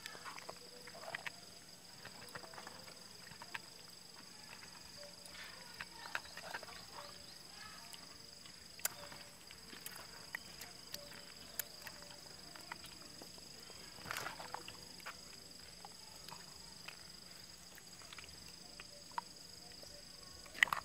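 Hands scrubbing whole catfish with salt in a metal basin to strip off their slime: wet rubbing and squelching with scattered small knocks of fish against the metal, busiest about fourteen seconds in. A steady high-pitched whine runs underneath.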